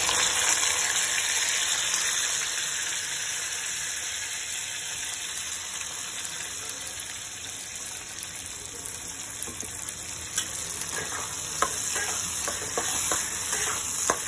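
Wet onion, garlic, tomato and ginger paste sizzling in hot oil with fried potato cubes in a metal kadhai, a steady hiss loudest as the paste goes in and easing off. From about ten seconds in, a metal spatula scrapes and taps against the pan as the masala is stirred.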